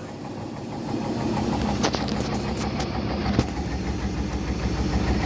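Samsung washing machine running with a low, steady rumble that builds about a second in, with a few sharp clicks around two seconds in.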